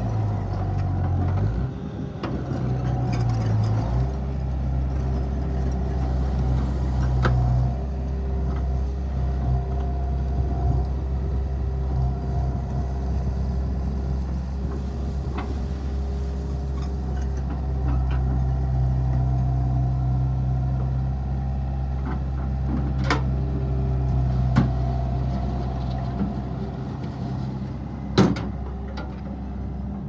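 Mustang MTL25 compact track loader running as it drives on its tracks and works its loader arms; the engine note shifts a few times with load. A few sharp knocks come in the second half.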